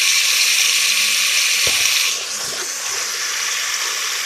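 Crushed garlic and cumin seeds sizzling in hot oil in a metal pot: a steady hiss that drops in level about two seconds in. A single light knock near the middle.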